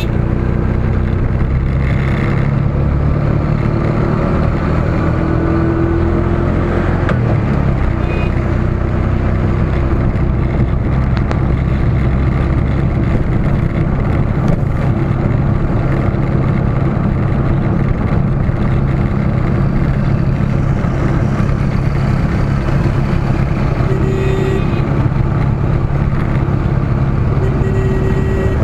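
Steady engine drone with road and wind noise from a vehicle moving through heavy highway traffic, with a few brief higher tones from the surrounding traffic.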